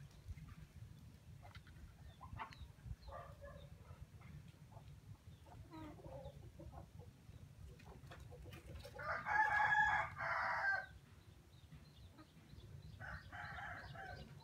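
A rooster crows loudly once about nine seconds in, a two-part call lasting about two seconds, and gives a shorter, quieter call near the end. Fainter scattered calls come before it, over a steady low hum.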